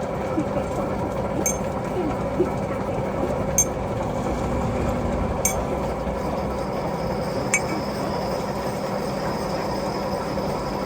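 Metal lathe running with a steady hum, with a sharp metallic clink roughly every two seconds.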